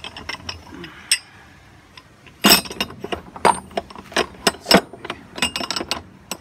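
Silicon bronze castings and steel axle rods clinking and knocking against each other as they are shifted by hand in a wooden crate. A few scattered clinks at first, then a quick run of sharp knocks from about two and a half seconds in until near the end.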